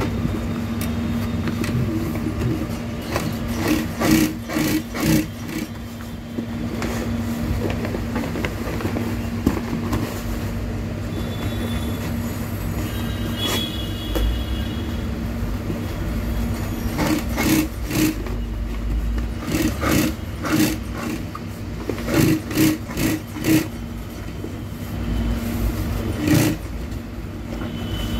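MADI industrial sewing machine stitching thick soft-top canvas: a steady motor hum, with the needle running in several short bursts of rapid knocking strokes.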